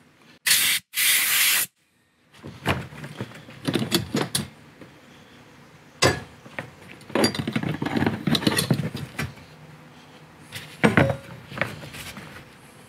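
Two short hissing bursts about a second in, then clicks, light knocks and rubbing as the fuel pump module's metal lock ring is worked free, lifted off the plastic fuel tank and set down.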